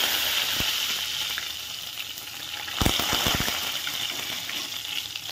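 Curry leaves sizzling in hot oil with cumin and mustard seeds in a kadai, the hiss slowly easing off. A short run of sharp crackling pops comes about three seconds in.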